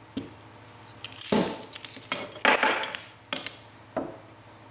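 Metal parts of a Ford 9N tractor's flyball governor clinking and knocking together as they are handled and set down on a workbench. A light tap comes first, then a cluster of clinks with a brief metallic ring from about one to four seconds in.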